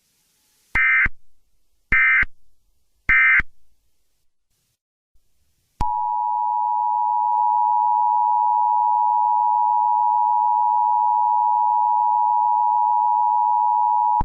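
Emergency Alert System end-of-message signal: three short buzzy digital data bursts about a second apart. About six seconds in, a loud steady two-pitch alert tone starts and holds.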